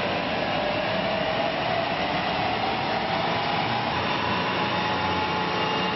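Holden VF Commodore running on a rolling-road test stand, its tyres spinning the steel rollers with a steady whir. A whine rises in pitch over the first few seconds as the wheels speed up, then holds steady.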